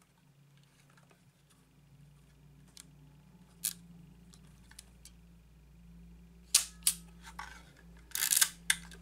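Clicks and knocks from a LOMO Lubitel 166 twin-lens reflex camera's plastic body and controls as it is handled: one sharp click a few seconds in, two louder clicks a little past halfway, and a short burst of clicking and rattling near the end, over a low steady hum.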